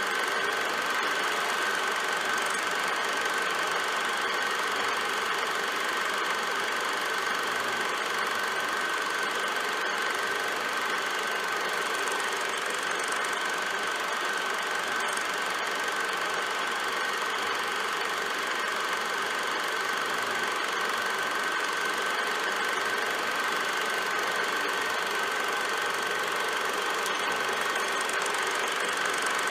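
Film projector running steadily: a constant mechanical whir with a steady high tone, unchanging throughout.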